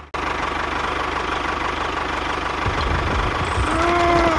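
Tractor engine running steadily with a fast low chugging. A short pitched tone rises and falls near the end.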